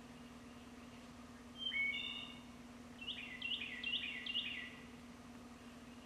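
A songbird singing: a short phrase of whistled notes about a second and a half in, then a run of about five quick repeated notes from about three seconds in. A steady low hum runs underneath.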